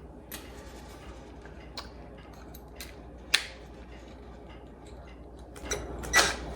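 Light clicks and rattles of small metal hardware being handled: a few single clicks, then a quick run of clicking near the end.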